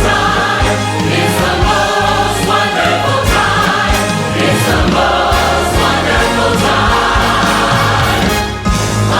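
A large choir singing with an orchestra, loud and full, with sustained chords over a steady bass.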